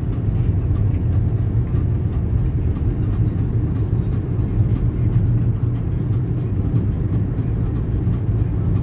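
A car being driven at a steady speed, its engine and tyre rumble heard from inside the cabin as an even, low drone.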